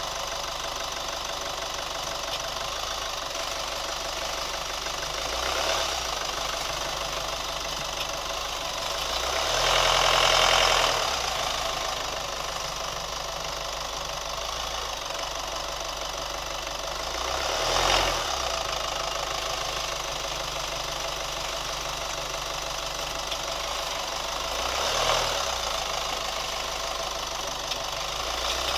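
A new Chevy Colorado pickup's engine running with a repetitive ticking, the tick the owner is documenting. The sound swells briefly four times, longest and loudest about ten seconds in.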